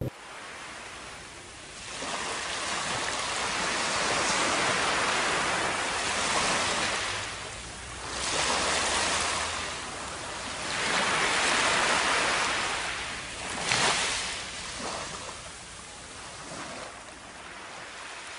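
Surf washing up on a sandy beach: waves rush in and draw back, swelling and fading every few seconds.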